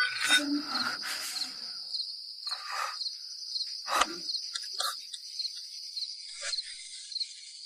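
Crickets chirping steadily in an even, regular pulse, with several brief rustles and a short knock about four seconds in.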